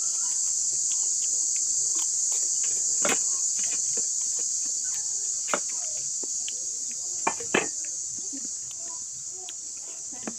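Insects chirring in a steady high-pitched drone, with scattered sharp clicks and crunches from eating by hand and handling enamel bowls, the loudest about a third of the way in and two close together around three-quarters through.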